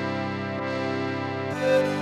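Instrumental accompaniment holding a sustained chord. About one and a half seconds in the chord changes, and a pan flute note enters over it with a gentle vibrato, starting the melody.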